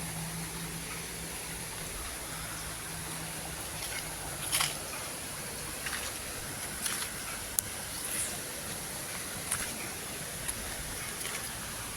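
River water flowing steadily, with a few short clicks and taps scattered through.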